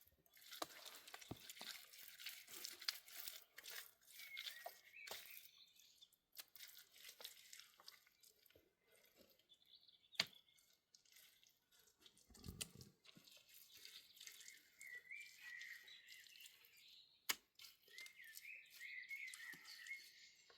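Quiet crackling and rustling, like material being handled, with scattered sharp clicks. A faint warbling high tone comes in a few times.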